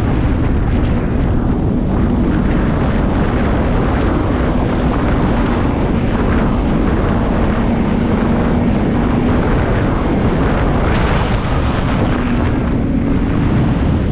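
Snowmobile engine running steadily at trail speed, with heavy wind rumble on the microphone.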